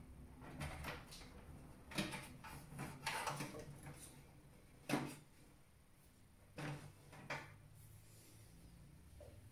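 Hands working on a desktop PC case: scattered clicks, knocks and rustling of parts and cables being handled, the sharpest knock about five seconds in.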